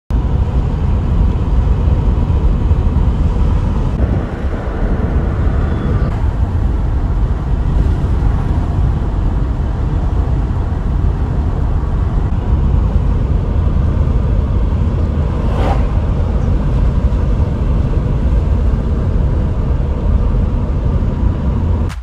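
Steady low road and engine rumble of a Mercedes-Benz 190E (W201) heard from inside its cabin while it drives along at cruising speed.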